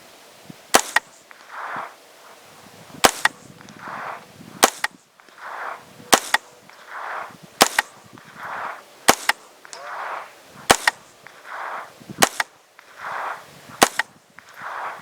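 Smith & Wesson M&P 15-22 short-barrelled rifle firing .22 LR rounds one at a time, nine shots at about one every second and a half. Each shot is followed by a fainter, shorter noise.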